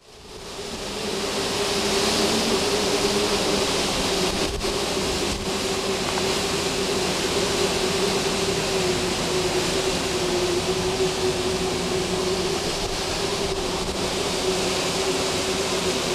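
Tropical-storm wind blowing hard and without letup. It fades up over the first second or two, with a steady hum-like tone running underneath the rush of air.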